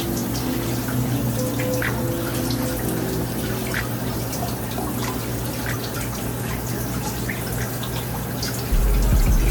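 Running water splashing and dripping during a hair wash, with soft background music. A loud low rumble cuts in suddenly near the end.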